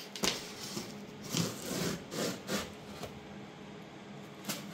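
A large cardboard shipping box being handled by hand: a sharp knock, then several rough scraping and rubbing sounds of cardboard, and another knock near the end.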